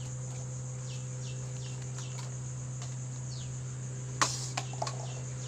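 Steady high-pitched cricket trill with a bird repeating short falling chirps over a low steady hum. A sharp tap comes about four seconds in, followed by a couple of lighter taps.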